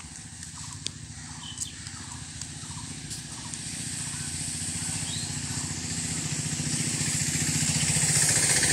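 A small vehicle engine running with a steady pulse, growing steadily louder as it approaches. A few faint short chirps sound in the first few seconds.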